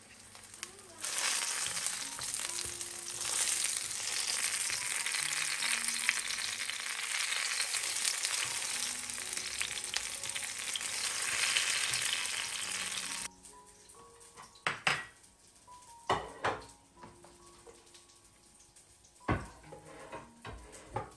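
Eggplant slices frying in hot oil in a non-stick pan: a loud, even sizzle that starts about a second in and cuts off suddenly after about twelve seconds. A few light knocks and clicks follow.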